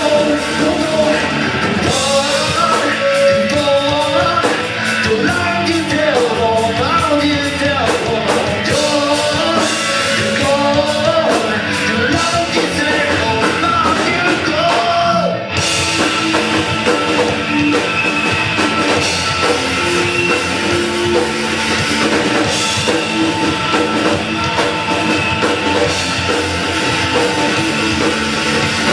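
A rock band playing loud heavy rock, with singing over the instruments for about the first half. The singing breaks off about halfway through and steadier held chords carry on.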